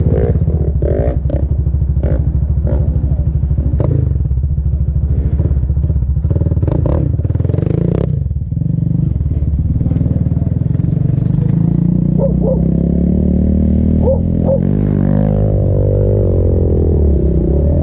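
An ATV engine running close by, steady and loud, with rattling clicks over the first half. Over the last several seconds its pitch slides up and down as it revs.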